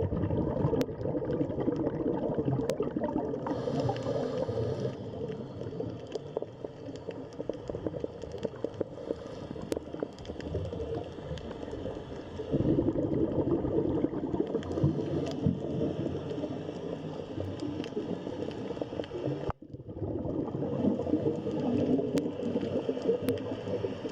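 Underwater-sounding ambience of water bubbling and gurgling, with scattered sharp clicks; it breaks off briefly about twenty seconds in, then resumes.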